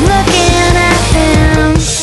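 Background music: a song with a drum kit and bass keeping a steady beat.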